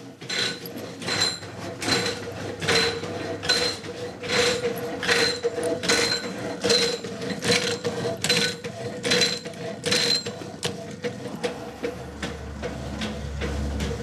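Power hacksaw cutting a block of wrought iron from a wagon axle. The blade strokes back and forth evenly, a little over once a second, and each stroke makes a short metallic scrape and ring. The strokes fade out after about ten seconds.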